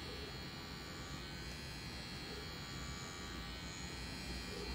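CNC rotary tattoo machine with a 3.5 mm stroke, buzzing steadily and faintly as its cartridge needle runs into skin, laying line work.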